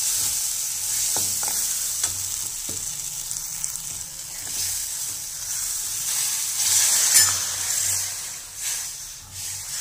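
Steel ladle stirring cooked urad dal through green masala frying in oil in a metal pan, with a steady sizzle and a few knocks of the ladle on the pan. About seven seconds in, water poured into the hot pan makes the sizzle flare up louder.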